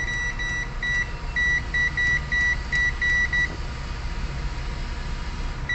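Multimeter continuity beeper sounding in about ten short, broken beeps over the first three and a half seconds, then one longer unbroken beep at the very end, as the probes touch a MOSFET on the graphics card's power stage. The beep marks that MOSFET as shorted.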